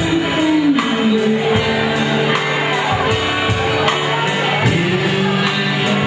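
A small band playing live: drum kit keeping a steady cymbal beat of about two and a half strokes a second, with guitar and a man singing.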